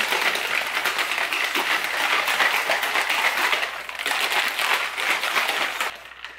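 Teal plastic BlenderBottle shaker of water shaken hard, its wire whisk ball rattling in a fast, steady churn that stops near the end.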